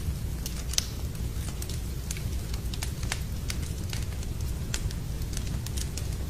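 Wood fire burning in a fireplace, crackling with many irregular sharp pops over a steady low rumble.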